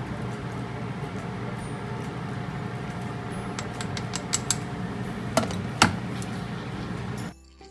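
Wooden chopsticks stirring and lightly tapping in a pot of soup, then a glass pot lid set onto the pot with two clinks near the end, over a steady background hum.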